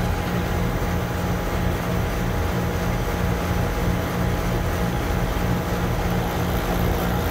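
Refrigeration vacuum pump running steadily with an even low motor hum as it evacuates the new condenser's refrigerant lines.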